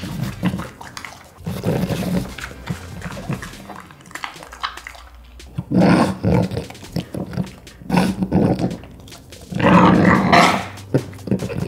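French bulldog eating a piece of dragon fruit close to the microphone: chewing and mouth noises with many small clicks, and three louder bursts of dog sounds about six, eight and ten seconds in, the last the longest.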